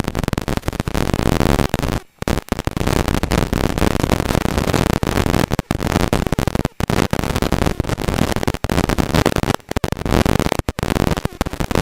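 Holden VP Commodore rally car accelerating hard away from a stage start, heard from inside the cabin as loud, distorted engine and road noise. The noise breaks off briefly several times.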